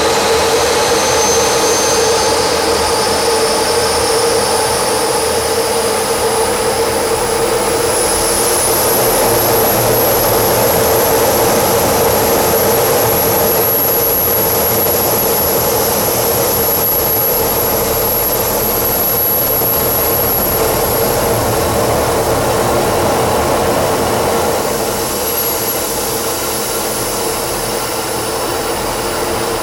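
Jet engine running steadily, a continuous loud rush with a faint high whine above it that climbs slightly at first and then holds.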